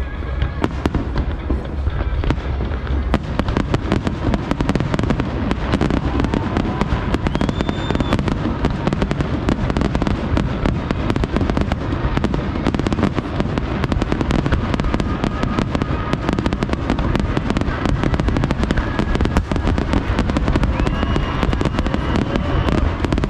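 Large aerial fireworks display: a dense, continuous run of shell bursts, booms and crackling, with music playing underneath.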